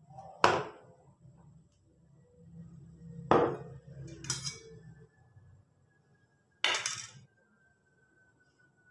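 Steel plates and a glass bowl being handled and set down on a kitchen counter: four separate clinks and clatters of dishware, the first the loudest.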